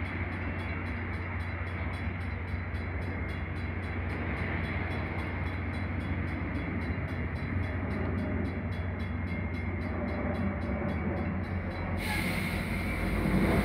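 Metra bilevel commuter train standing at the platform, idling with a steady low hum that grows a little louder near the end.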